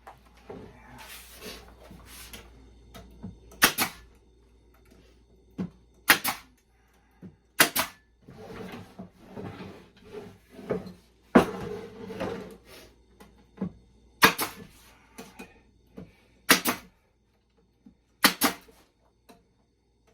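Nails being driven one at a time to tack a plywood bottom onto a five-frame nuc box: about seven sharp cracks a second or more apart, two in quick succession near the end, with the scrape and shuffle of the wood being handled between them.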